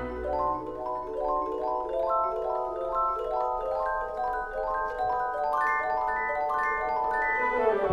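Background music: a quick run of short struck notes, climbing gradually in pitch.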